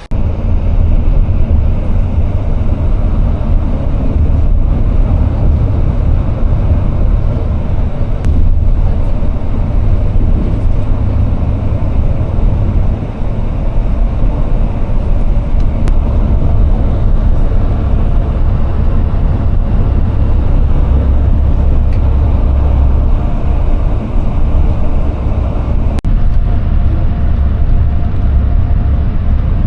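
Steady low rumble of a road vehicle in motion, loud and continuous.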